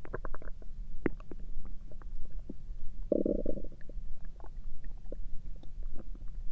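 Human stomach rumbling and gurgling: scattered short pops and gurgles, a quick run of them at the start, and a louder growl lasting about half a second about three seconds in, over a steady low hum.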